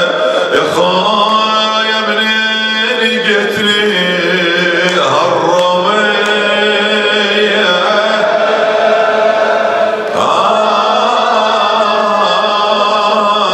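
A man's voice chanting a mournful Arabic lament through a microphone, the sung elegy that closes a Husseini majlis. It moves in long drawn-out phrases with slow slides in pitch.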